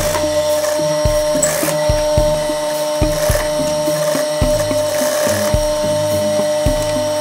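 Industrial sewing machine running and stitching fabric: a steady motor hum with irregular low knocks from the needle mechanism.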